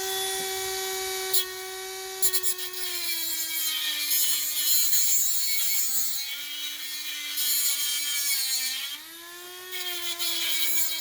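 High-speed rotary tool cutting down a header stud: a steady motor whine whose pitch sags as the cut bites, with gritty grinding noise, then climbs back near the end as the load eases.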